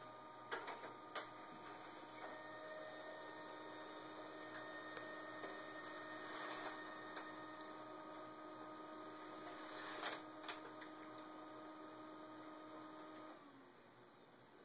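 A steady electrical hum from some appliance or motor, which stops about thirteen seconds in with a short drop in pitch. A few sharp clicks come near the start and again around ten seconds.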